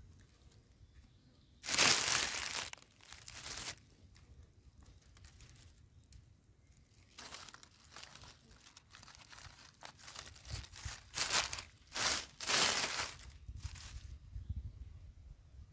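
Dry fallen leaves crackling and rustling as a hand brushes them aside, in several short bursts: a loud one about 2 s in, more around 7–8 s, and a cluster around 11–13 s.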